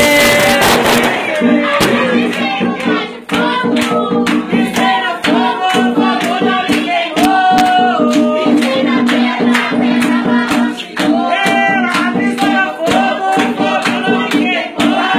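Group singing of a ritual chant (ponto) over drumming and percussion keeping a steady beat, as at an Umbanda or Quimbanda gira.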